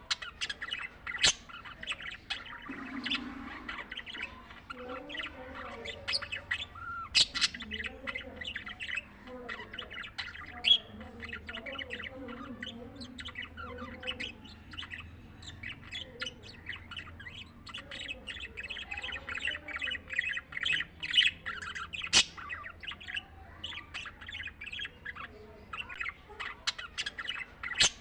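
Budgies chattering and chirping continuously: rapid short chirps with a few louder sharp squawks mixed in.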